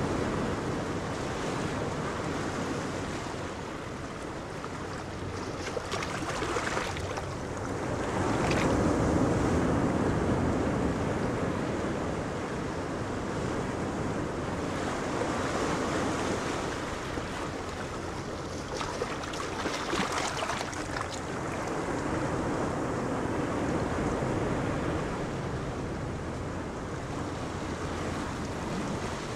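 Wind blowing across the microphone over the wash of choppy sea waves, swelling and easing every few seconds.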